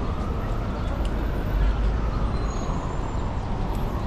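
City street traffic: a steady low hum of passing vehicles.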